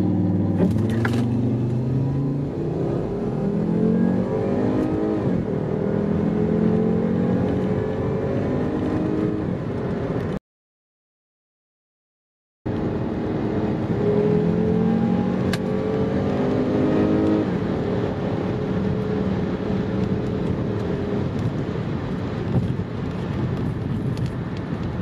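Volvo V50 T5's turbocharged inline five under full-throttle acceleration, its note climbing and then dropping back at each upshift of the five-speed automatic. It cuts off for about two seconds partway through, then a second full-throttle pull climbs through the gears the same way.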